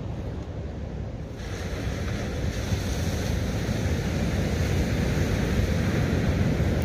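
Surf washing up the beach, its hiss swelling about a second and a half in and holding, with wind rumbling on the microphone.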